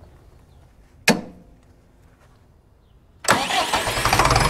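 A John Deere 3020 tractor's engine running, coming in abruptly about three seconds in and holding steady. Before that it is quiet apart from a single sharp knock about a second in.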